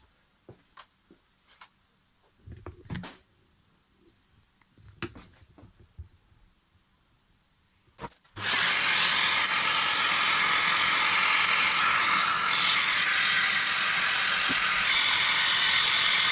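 A few light clicks and knocks of handling, then about eight seconds in a workshop machine starts abruptly and runs with a loud, steady rushing hiss.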